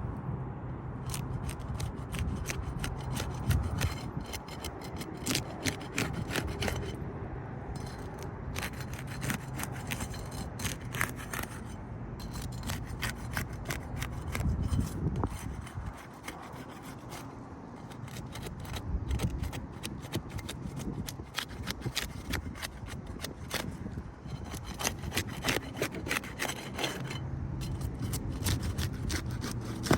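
Steel flat bar being worked under an asphalt roof shingle to break its sealant strip: a long run of repeated scraping and crackling strokes.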